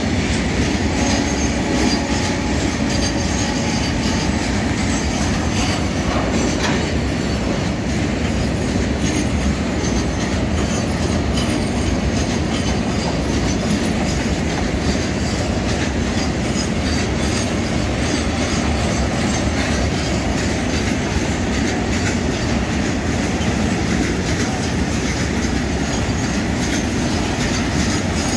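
A rake of loaded bogie oil tank wagons rolling past close by: a loud, steady rolling noise of steel wheels on rail, with the clickety-clack of the wheels over the rail joints.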